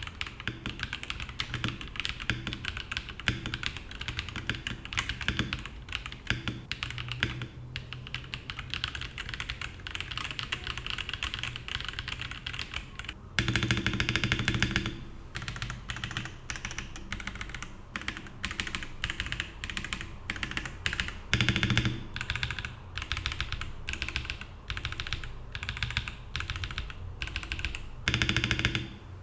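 Typing on an AKKO 5075B Plus mechanical keyboard in stock form, with blue tactile switches and factory lubrication and dampening: a steady run of keystroke clacks, with louder flurries about halfway through, about three quarters through and near the end.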